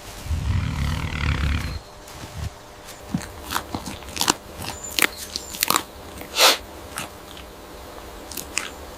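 A low rumbling sound for the first couple of seconds, then a run of sharp, irregular crunches and clicks like an animal chewing.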